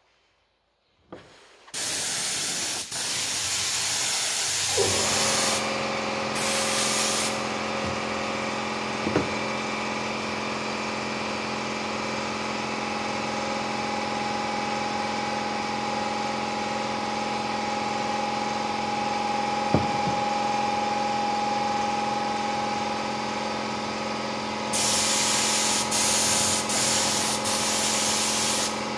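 Glue spray gun hissing in bursts as adhesive is sprayed onto upholstery foam. An air compressor starts up a few seconds in and then runs with a steady hum.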